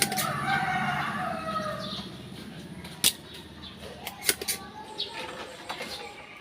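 A rooster crowing in the background for the first two seconds, followed by a few sharp clicks.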